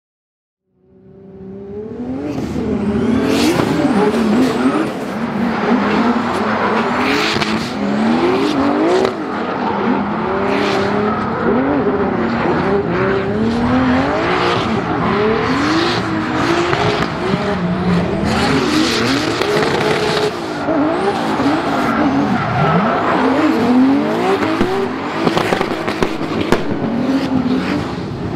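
BMW drift car's engine revving hard up and down through a slide, with tyres screeching on the tarmac. It fades in over the first couple of seconds.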